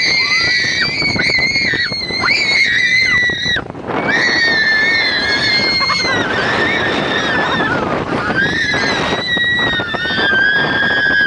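Roller coaster riders screaming: long, high-pitched held screams, three main ones with short breaks between them, over a steady rush of wind and track noise as the car runs along the track.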